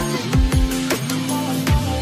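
Electronic background music: held synth chords over a kick-drum beat with hi-hat ticks.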